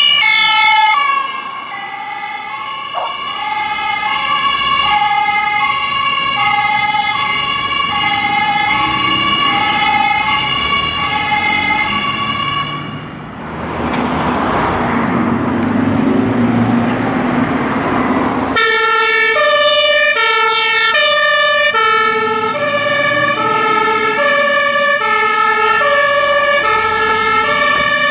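German fire-service two-tone siren (Martinshorn) alternating steadily between two pitches. About halfway through it gives way to about five seconds of loud rushing vehicle noise. Then a second two-tone siren, pitched lower, takes over on another fire engine.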